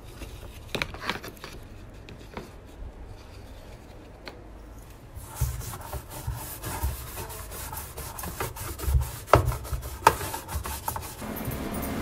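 Brush scrubbing the plastic inside of a semi-automatic washing machine's tub to loosen built-up grime, in repeated rubbing strokes with a few clicks and knocks. It is light at first and gets louder about five seconds in.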